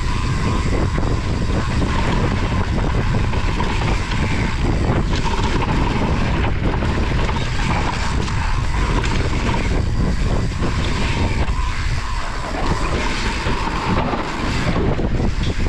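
Mountain bike riding down a dirt singletrack: steady wind rumble on the microphone over tyres rolling on dirt, with frequent rattles and knocks from the bike over bumps.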